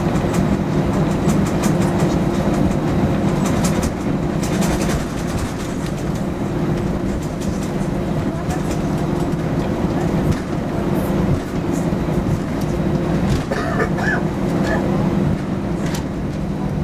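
Airbus A319 jet engines at taxi power heard inside the cabin: a steady hum with a low drone. A few brief clicks and knocks come through along the way.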